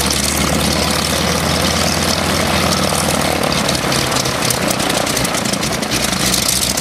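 Open-cockpit biplane's propeller engine running at low power as it taxis: a steady low drone that turns unsteady for a couple of seconds in the middle.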